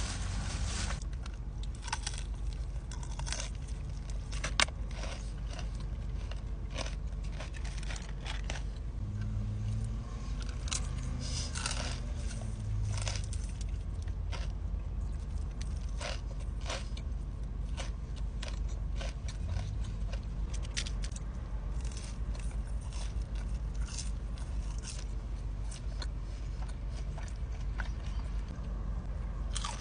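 Close-up eating sounds: crunchy bites and chewing, many short irregular crackles, over a steady low rumble.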